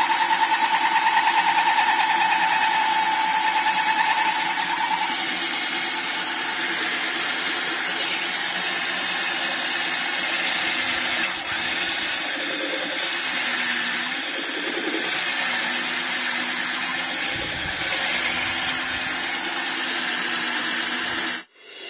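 Cordless drill running steadily, spinning a glass hole saw bit that is cutting a hole in the side of a glass jar through a plastic guide plate. A higher whine for the first five seconds or so gives way to a lower tone.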